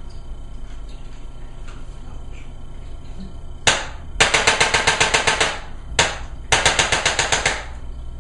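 Electric Impulse chiropractic adjusting instrument firing against the body. First comes one sharp click, then a rapid run of about ten clicks a second for over a second. After that comes another single click and a second rapid run.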